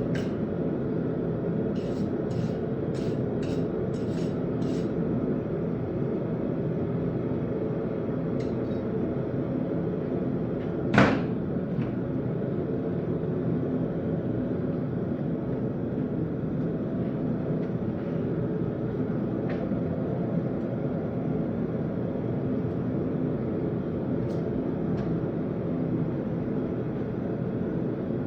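Hammer striking steel at the anvil over a steady drone: a quick run of light taps near the start, then one loud ringing blow about eleven seconds in.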